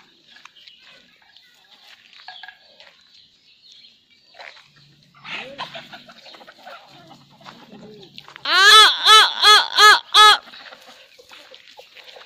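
Free-ranging chicken flock: faint scattered clucking, then a bit past halfway one loud call of five quick rising-and-falling notes.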